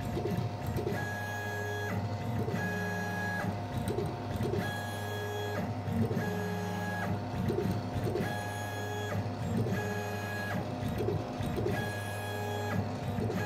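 Stepper motors of a CNC gantry painting machine driving its tool head in a string of short moves. Each move is a steady whine of under a second, with brief clicks between them, over a constant low hum.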